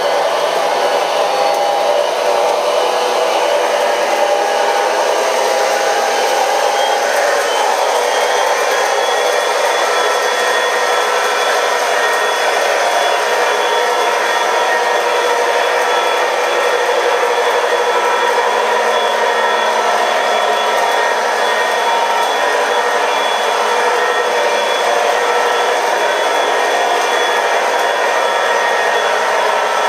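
MTH O gauge model train running on three-rail track: a steady, continuous rolling noise of wheels on the rails with a whine.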